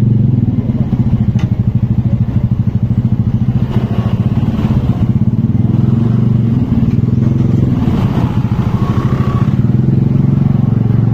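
Motorcycle engine running at a steady speed.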